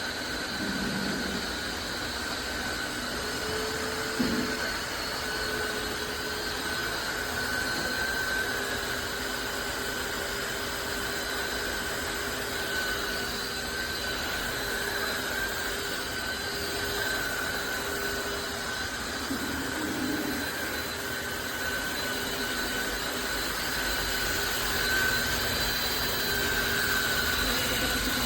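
Tineco Floor ONE S5 Steam wet-dry vacuum mop running steadily, a motor whine over a steady rush of suction, with a few soft knocks.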